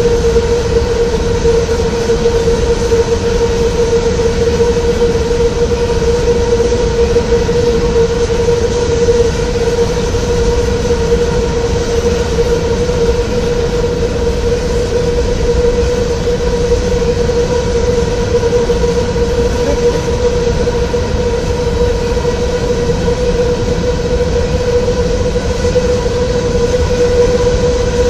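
Freight train of covered hopper cars rolling steadily past at close range, steel wheels on the rails, with a steady tone under the rail noise.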